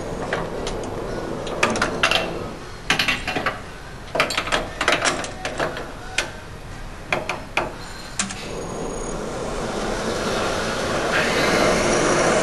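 Sharp metal clinks and knocks as hands work at the spindle and tooling of a valve seat and guide machine. From about nine seconds in, the machine's motor runs up and grows steadily louder, driving the half-inch reamer that sizes the small block Chevy's valve guide bores.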